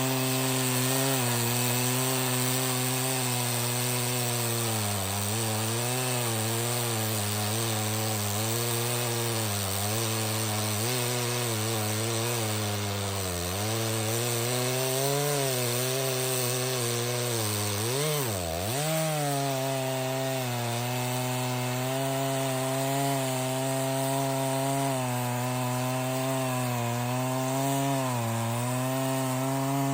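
Stihl 066 two-stroke chainsaw held at high revs while cutting through red oak. Its engine note sags and recovers repeatedly under the load of the cut, with one deep drop about eighteen seconds in before it climbs back up.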